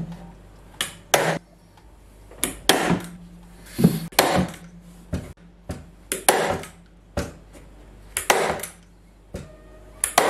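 Hand staple gun firing staples through upholstery fabric into a wooden backrest board: a series of sharp snaps, often in quick pairs, about one a second.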